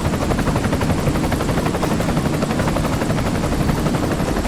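Engine of a miniature construction vehicle running steadily with a fast, even pulse.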